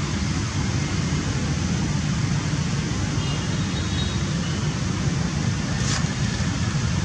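Steady low outdoor rumble without pitch, with a few faint high chirps about three seconds in and a short click near the end.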